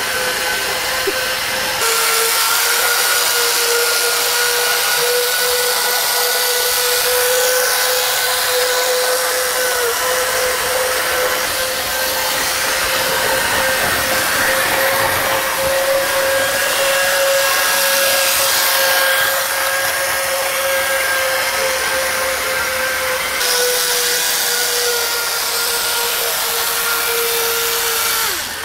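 Small electric motor of a model car running along a track layout: a steady high whine that drifts slightly up and down in pitch with speed, over a hiss. It cuts off suddenly near the end.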